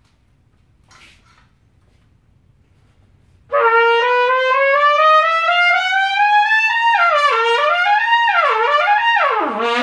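Harrelson VPS Summit One trumpet played, starting about three and a half seconds in: a long slow rising slur, then three quick swoops down and back up, each dipping lower. The horn is set up with its largest-gap number 18 receiver insert, and locks in on each partial.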